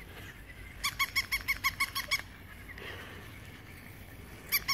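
Battery-operated toy puppy yapping: a fast run of high-pitched electronic yips, about six a second. The run comes about a second in and again near the end.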